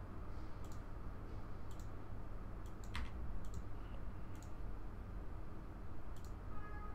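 Quiet, scattered computer clicks, about eight of them, irregularly spaced, from a mouse and keyboard while records are paged through in ERP software. A faint low hum lies under them.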